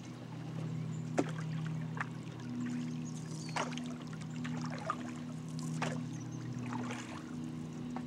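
Canoe paddle strokes in calm lake water: a handful of short splashes and drips, a second or two apart, over a steady low hum.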